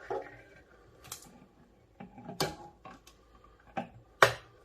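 Clicks and knocks of a soldering station and its parts being handled and set down during unboxing: five or so separate sharp clicks about a second apart, the loudest near the end.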